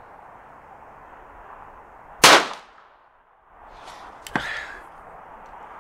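A single gunshot from a Stevens New Model No. 40 .22 pocket rifle with a 10-inch barrel: one sharp crack about two seconds in. About two seconds later comes a light metallic click from the rifle's action as it is handled after the shot.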